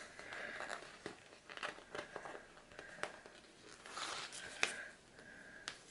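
Faint rustling and crinkling of paper and sticker sheets, with small scattered clicks, as planner stickers are peeled up and pressed back down.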